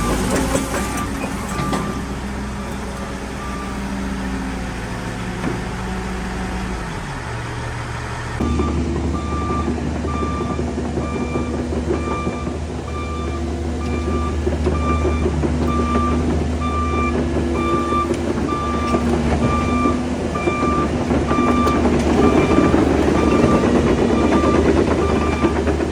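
Cat 308 excavator's diesel engine running, with its travel alarm beeping steadily at about one beep a second. The engine note drops about seven seconds in, and the machine sound grows louder and rougher near the end.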